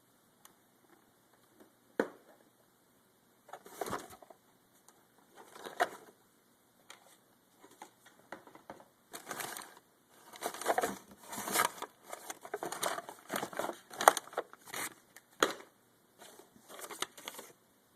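Irregular crinkling and rustling as stored things are rummaged through and handled, with a sharp knock about two seconds in.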